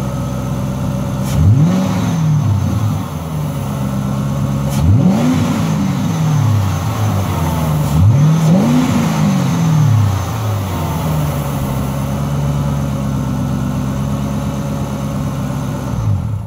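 2008 Ford Mustang GT's 4.6-litre V8, fitted with a Pypes Pype Bomb cat-back exhaust and a new cold air intake, idling and blipped three times. Each rev rises quickly and falls back to idle. The engine stops near the end.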